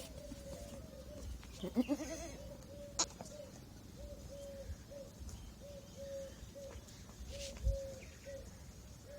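A newborn goat kid bleats once, a short rising call, about two seconds in. Under it a string of short notes on one low pitch repeats about twice a second, with a single sharp click about three seconds in.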